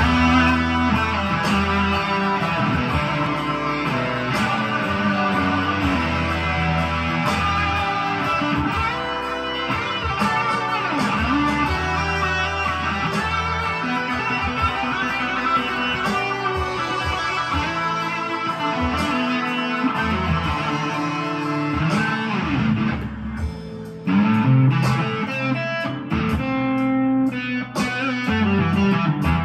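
Squier Toronado electric guitar with humbucking pickups, played through a Blackstar amp with distortion, reverb and delay: an improvised dirty-blues lead in E minor pentatonic over held low notes, with a short break about three quarters of the way through.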